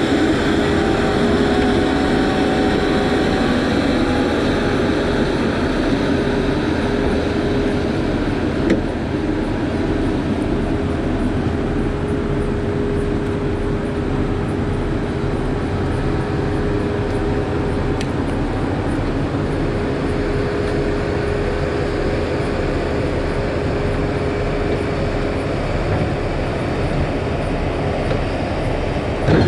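Heavy diesel engine of a John Deere log skidder running steadily as it drives slowly past, with a steady whine over the engine note.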